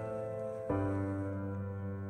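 Soft background music: sustained chords, with a new chord struck about two-thirds of a second in.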